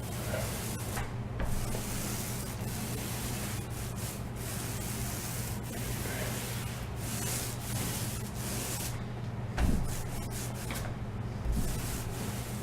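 Paintbrush of about 2 inches brushing paint onto a wall in repeated strokes, a steady rubbing of bristles on the surface while a second coat goes on.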